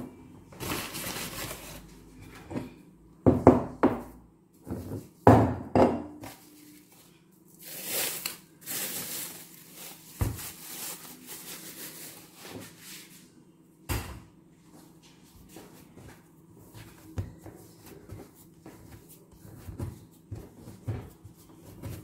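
Kitchen handling while working on dough: irregular knocks and thumps of bowls and utensils, about half a dozen, with short bursts of rustling or scraping between them. A faint steady hum runs underneath.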